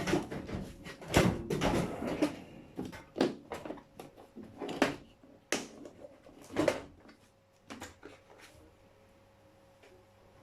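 Clicks, knocks and rustling of hand work with an RJ45 plug and the trimmed Ethernet cable wires being fitted into it, a dozen or so sharp strokes over about seven seconds, then quiet.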